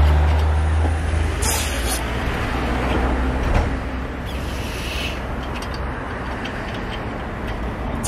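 Low rumble of a passing road vehicle's engine, loudest at the start and fading away over the first four seconds, with a short hiss about one and a half seconds in.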